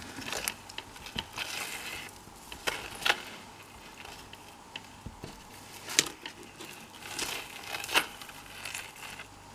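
Fine beaded metal chains clinking and rustling as they are handled over a fabric backdrop. A few sharper clicks stand out, the loudest about six seconds in.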